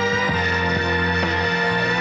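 Live rock band playing on stage: long held notes over the band, with no singing.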